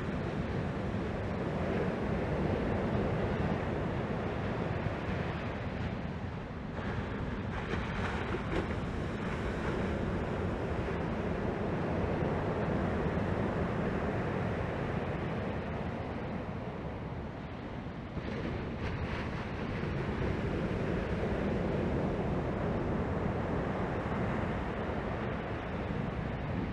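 Surf breaking on a sandy beach: a steady wash that swells and ebbs, with wind noise on the microphone underneath.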